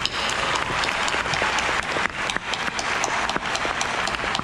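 Large audience applauding, a dense patter of many hands clapping.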